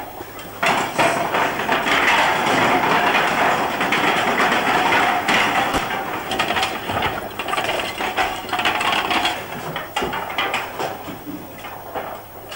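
Roof tiles being broken and knocked loose, a dense, continuous clatter of ceramic pieces knocking together that fades toward the end.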